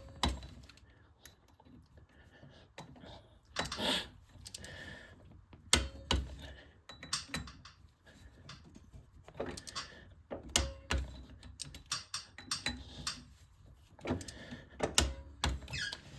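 Irregular metallic clicks, clinks and knocks of hand tools and bolts being worked on a garden tractor's rear wheel hub, with a few louder clanks.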